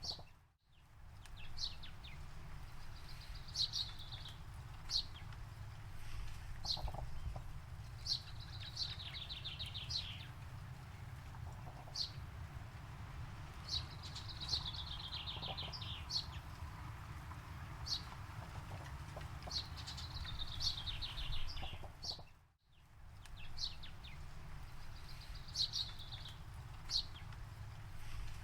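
Songbirds singing: short high chirps and trills of rapid repeated notes every couple of seconds, over a steady low rumble. The sound dips out briefly twice, just after the start and about 22 seconds in.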